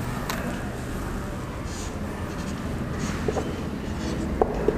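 Writing as a figure is drawn: a few short scratchy pen strokes and light ticks on the writing surface, over a steady low background hum.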